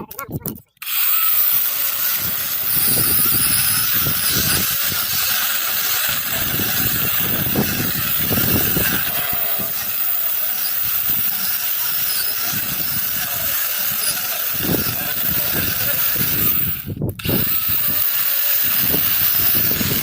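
Battery-powered electric chainsaw running and cutting into wood, making the diagonal cut of a felling notch. It starts about a second in, stops briefly near the end, then cuts again.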